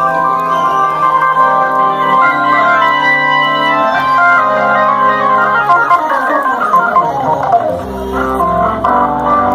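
Hammond organ played live at a rock concert through the PA: held chords, then a fast run of notes falling in pitch, with a low bass coming in near the end.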